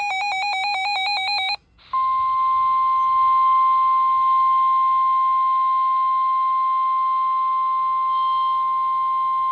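NOAA Weather Radio emergency alert signalling a severe thunderstorm warning. It opens with the end of a SAME digital header burst, a fast warbling data screech, then after a short break comes the 1050 Hz warning alert tone, one steady unbroken beep over light radio hiss.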